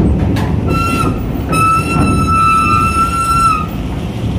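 Diesel truck engine running as it drives down a ferry ramp onto a steel-grated dock. A shrill tone toots over it: once briefly about a second in, then held for about two seconds.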